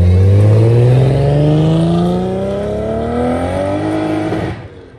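Car engine accelerating hard in one long pull, its pitch climbing steadily, then dropping away abruptly about four and a half seconds in.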